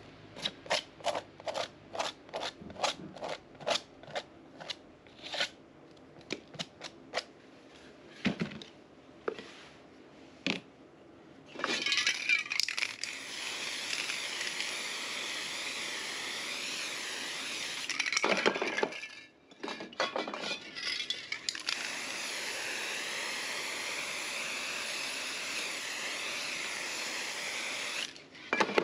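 A palette knife scraping over dried, rough modeling paste in quick strokes, about two or three a second, then more sparsely. About twelve seconds in, an aerosol spray can starts a steady hiss of spray paint. The hiss breaks off briefly in the middle with a few clatters, then runs on.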